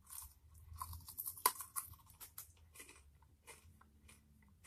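Close-up crunching and chewing of a bite of peanut candy, a run of crisp crunches with the sharpest about a second and a half in, thinning to quieter chewing later.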